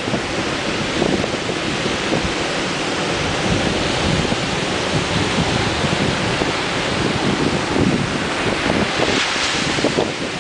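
Ocean surf washing in continuously on the shore, with a brighter hissing surge of a breaking wave about nine seconds in. Wind buffets the microphone, adding a low rumble.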